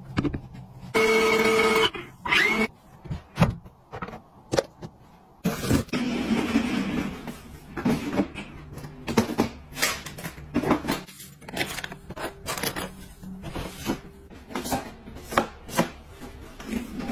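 A short electronic beep lasting about a second, then a run of irregular plastic clicks and knocks as the drawers of a plastic stacking drawer cabinet are handled.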